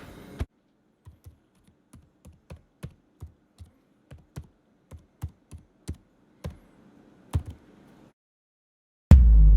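A run of short, light taps or clicks at an uneven pace, roughly two or three a second, stopping about eight seconds in; about a second later, loud music with drums starts.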